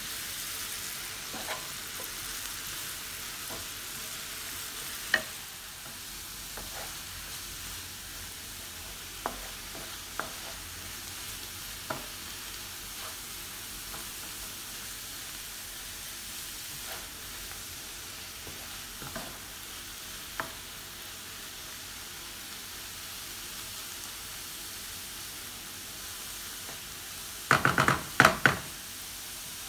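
Chopped leeks sizzling as they sauté in hot oil in a non-stick frying pan until soft, stirred with a wooden spoon that knocks against the pan now and then. Near the end comes a quick run of louder knocks.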